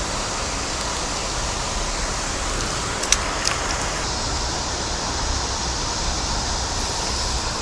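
Steady rushing of flowing water, even and unbroken, with two short sharp clicks about three seconds in.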